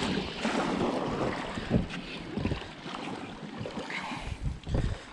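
A hooked muskie splashing and swirling at the surface beside an inflatable raft, with wind buffeting the microphone and a few low knocks.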